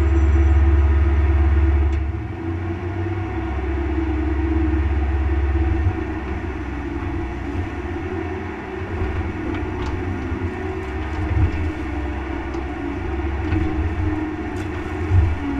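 Mini excavator's diesel engine running steadily while the hydraulics work the boom and bucket. The engine is loudest for the first two seconds, then settles a little, with a few short knocks later on, the loudest near the end.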